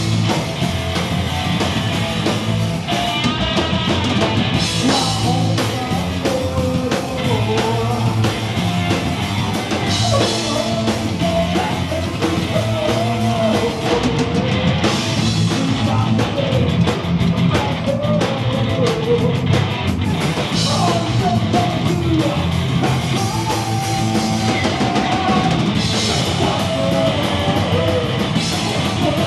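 A punk rock band playing loud and live: a drum kit, bass and guitar, with a singer's vocals over them.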